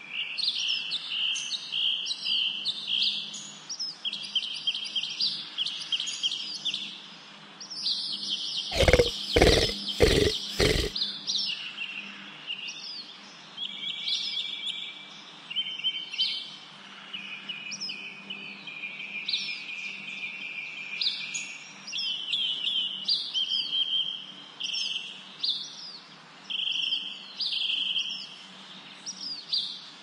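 Birds chirping and singing in quick, repeated short phrases. About nine seconds in come four sharp knocks in quick succession, louder than the birdsong.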